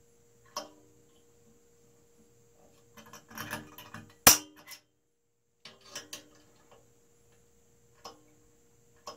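Small metal hardware clinking and knocking against an aluminium-extrusion printer frame as parts are fitted by hand: scattered clicks, the sharpest about four seconds in, over a faint steady whine.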